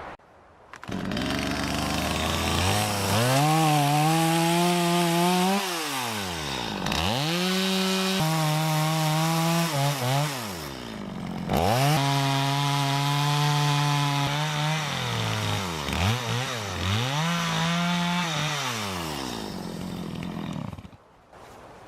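Chainsaw cutting back a fallen log, revving up and holding high while in the cut, then easing off between cuts, several times over. It shuts off near the end.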